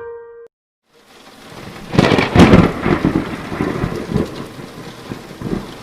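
Thunderstorm sound effect: rain fades in, a loud thunderclap breaks about two seconds in and rumbles on under steady rain. A few piano notes end just before it.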